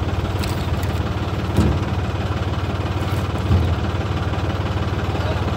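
An engine idling steadily with an even, rapid low pulse, and two brief thumps, about one and a half and three and a half seconds in.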